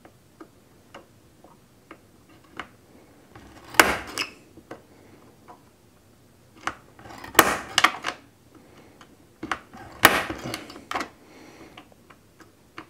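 Automatic center punch firing against pinch rivets in an aluminum window frame: several sharp snaps a few seconds apart, each punching a starting divot for the drill bit.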